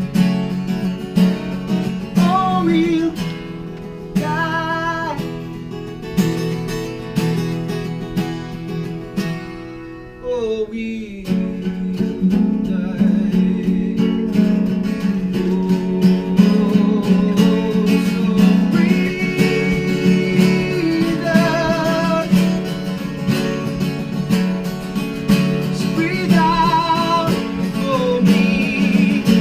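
Unplugged live band performance: strummed acoustic guitar chords under held, wavering melody notes. About ten seconds in, the playing thins out with a falling slide, then comes back fuller.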